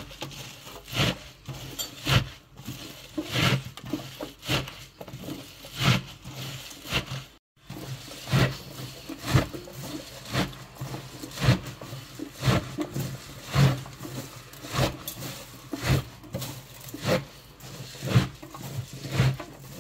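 Handfuls of salted wild garlic shoots being kneaded and squeezed by hand in a stainless steel sink, a wet crunching squeeze about once a second. A short break about halfway through.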